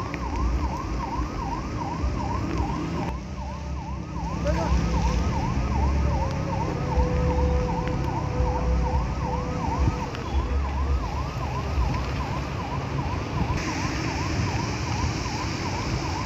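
Emergency vehicle siren in yelp mode, a rapid up-and-down wail repeating about two to three times a second, over a low rumble.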